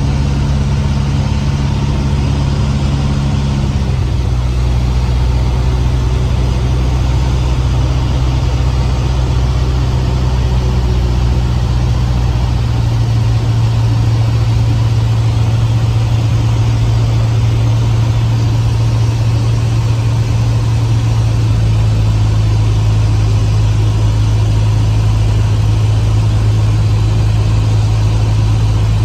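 Cessna 150's four-cylinder air-cooled engine and propeller running steadily, the engine note shifting slightly about four seconds in and again about thirteen seconds in.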